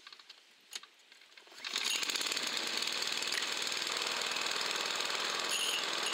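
Walk-behind rotary lawnmower's petrol engine, with its blade fitted, being started: a couple of faint clicks, then the engine catches nearly two seconds in and runs steadily with a fast, even firing beat.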